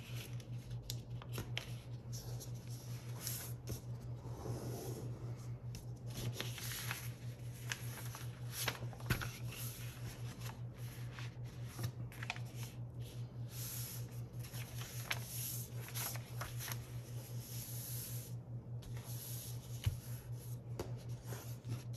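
A sheet of paper being folded and creased by hand on a table: rustling, sliding and short sharp crease snaps, over a low pulsing hum.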